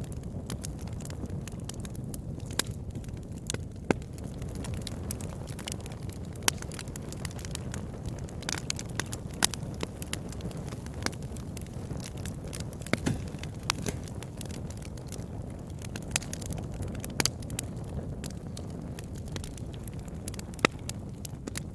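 Campfire crackling: scattered sharp pops and snaps over a steady low rumble of the flames. A few pops stand out louder than the rest.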